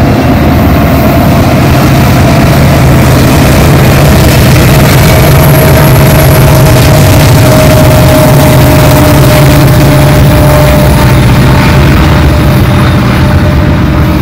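Diesel freight locomotive of a passing train running loud and steady, with its freight cars rolling on the rails behind it.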